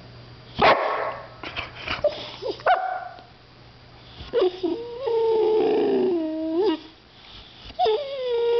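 White boxer dog vocalizing: a few short, sharp yaps in the first few seconds, then a drawn-out whining howl about four seconds in that dips in pitch and swings back up, and a steady howl starting near the end.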